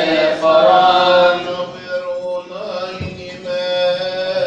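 Male voices chanting a slow Coptic Orthodox Holy Week hymn, holding long drawn-out notes that slide from pitch to pitch.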